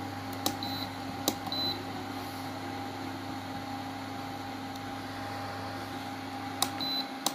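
Croma induction cooktop running with a steady cooling-fan hum while its control-panel buttons are pressed. There are three taps, each followed by a short high beep: two about a second in and one near the end. The lowest part of the hum drops out shortly before the end.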